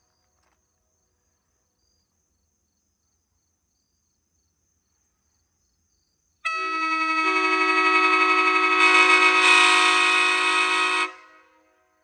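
Nathan K5LA five-chime locomotive air horn, its bells shimmed with 3D-printed shims to sound as a K5L, blowing one long chord of about four and a half seconds. The blast starts abruptly about six seconds in, swells slightly, and cuts off near the end with a short echo.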